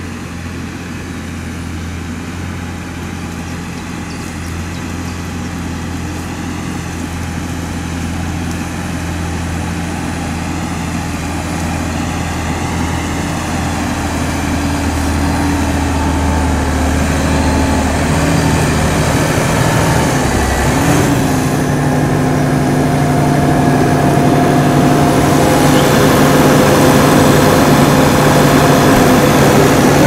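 Massey Ferguson 6465 tractor's diesel engine running steadily, growing louder as it draws near. About twenty seconds in, the engine note dips and settles at a different steady pitch as the revs change.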